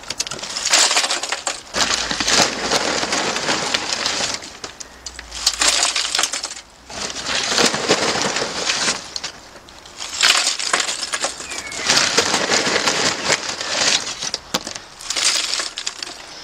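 Lumpwood charcoal being piled by hand into a metal chimney starter, the lumps clattering and clinking against the steel and each other in several handfuls with short pauses between them.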